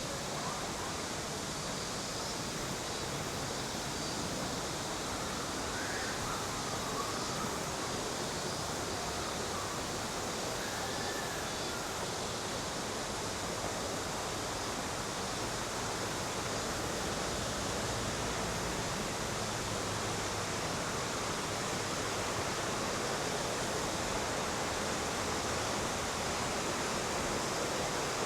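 Steady rush of a mountain river's flowing water, growing slightly louder toward the end.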